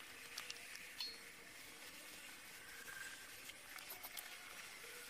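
Faint, scattered light clicks and taps of small handwork over a low steady hiss, with a brief faint high tone about a second in.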